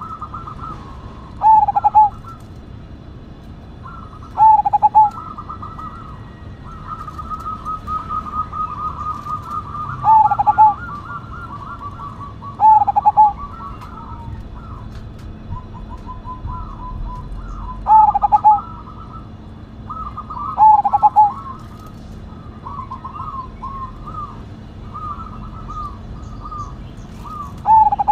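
A caged zebra dove (perkutut) cooing: runs of soft, quick staccato notes broken every few seconds by a short, louder, lower coo, about seven times in all.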